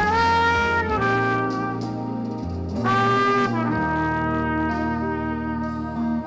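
Instrumental music with a brass-like lead holding long notes over a steady bass, moving to new notes about a second in and again around three seconds in.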